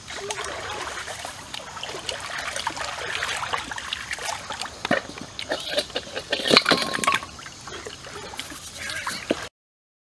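Stream water trickling, with scattered short clicks and crackles that are loudest a little past the middle. The sound cuts off suddenly near the end.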